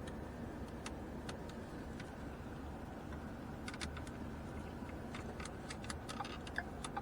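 Small clicks and taps of hands working plastic steering-column parts and a screw at the wiper switch. The clicks are sparse at first and come more often from about halfway through, over a steady low background hum.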